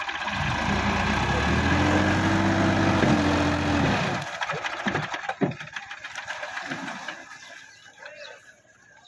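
Sonalika DI-50 RX tractor's diesel engine working hard under load as it climbs out of a flooded paddy: a steady low engine note with broad clatter. About four seconds in the note drops away and fades, leaving scattered faint knocks.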